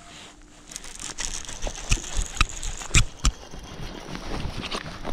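Handling noise of an angler moving on a grassy, stony bank: clothing rustling against the body-worn camera and steps on the bank. The rustling starts about a second in, and four sharp knocks fall between about two and three and a half seconds in.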